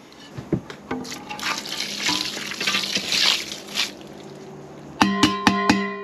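Wet contents poured from a stainless steel pail onto the bedding of a worm bin, splashing for about three seconds. Plucked guitar music starts about five seconds in.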